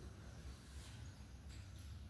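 Near silence: only a faint low rumble of room tone.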